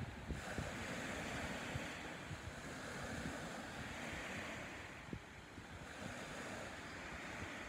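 Small waves lapping and washing on a beach, the wash swelling and fading every few seconds, with wind rumbling on the microphone.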